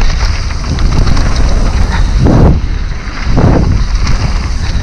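Wind buffeting the microphone and a mountain bike rattling over a rough dirt trail at speed on a descent, with two short louder rushes around the middle.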